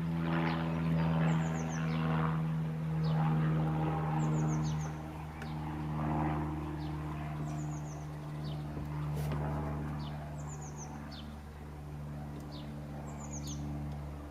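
A bird repeating a short, high, falling chirp phrase about every second and a half, over a steady low mechanical hum.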